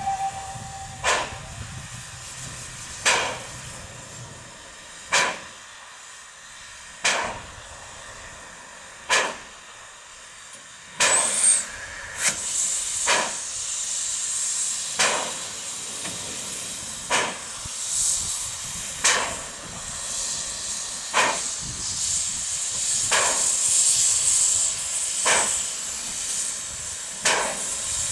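Px29 narrow-gauge steam locomotive standing with steam up, then easing away. A whistle ends at the very start, then sharp puffs come about every two seconds. About 11 seconds in a loud blast of steam breaks out, and a steady hiss of steam from around the cylinders goes on under the puffs as the engine starts to pull away.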